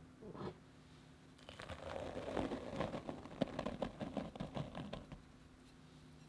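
Strong bread flour poured into a glass mixing bowl: a soft rush of falling flour with many small crackling ticks, starting about a second and a half in and stopping about five seconds in.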